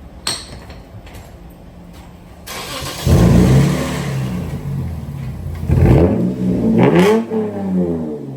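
Car engine cranked over with a freshly installed exhaust system and firing up about three seconds in, then revved twice through the new exhaust before settling back down toward idle. This is the first start after the exhaust job.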